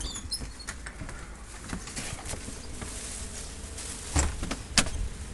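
Rustling and knocking of someone moving about while carrying a handheld camera, with two sharp knocks near the end, about half a second apart.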